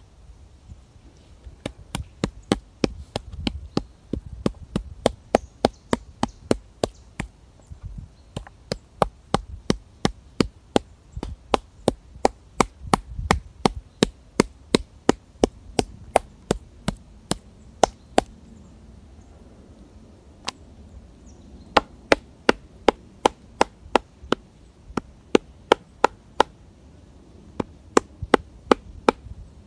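Wood being chopped with quick, even blows, about two to three a second, with a short break about two-thirds of the way through.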